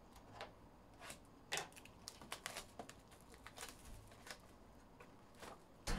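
Cellophane shrink wrap being torn and peeled off a trading card hobby box, giving faint, irregular crinkles and crackles.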